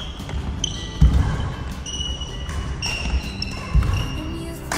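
Badminton play on an indoor court: sports shoes squeaking on the floor, with three heavy footfall thumps, one about a second in and two near the end.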